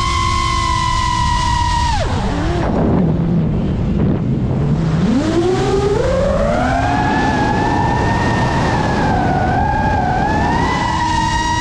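GEPRC Mark 5 FPV quadcopter's brushless motors whining. About two seconds in the pitch drops sharply as the throttle is cut, stays low for a few seconds, then climbs back from about five seconds in as the throttle comes back up, wavering slightly near the end.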